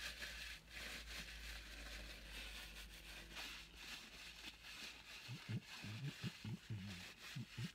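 Faint steady background hiss and hum, then, a few seconds in, a string of short low hums and grunts from a man's closed mouth.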